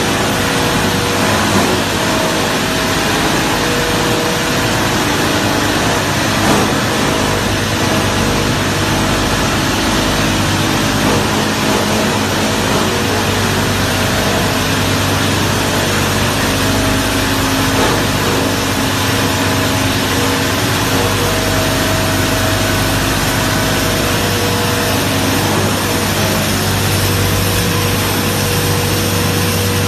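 Copper wire granulator running steadily while it crushes scrap cable and separates copper granules from plastic: a loud, unbroken mechanical noise with a constant low hum.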